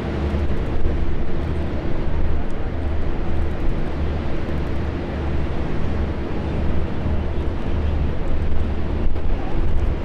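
Emirates Airbus A380 four-engine jet airliner arriving, a loud steady jet rumble with an uneven low throb and a few held engine tones.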